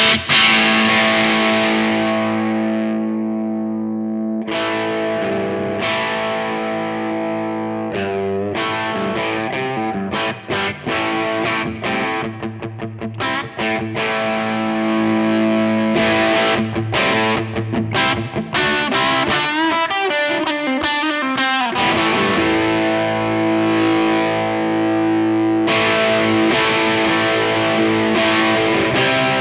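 Electric guitar played through a NUX 63 Diamond, a Vox AC30-style overdrive pedal, giving an overdriven tone: held chords alternate with runs of picked notes. The top end dulls for a moment a few seconds in, then comes back.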